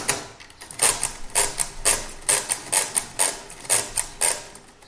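Facit pinwheel mechanical calculator clattering with quick runs of metallic clicks as its crank is turned and its carriage is stepped with the shift keys. This is long division by repeated subtraction, going until the machine underflows.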